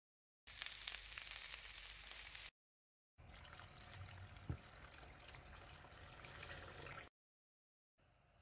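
Chicken pieces frying in a pan, a dense crackling sizzle for about two seconds. Then a stream of water poured into a pan of simmering spiced sauce, a steady splashing pour for about four seconds.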